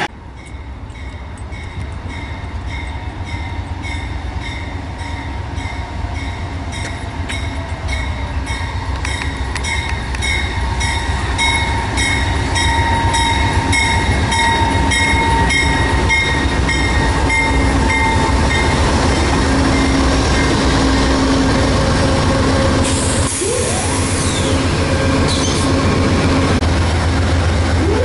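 Amtrak GE Genesis P42DC diesel locomotives approaching and passing, their engine rumble growing steadily louder. A bell rings evenly for the first two-thirds and fades out about 19 seconds in.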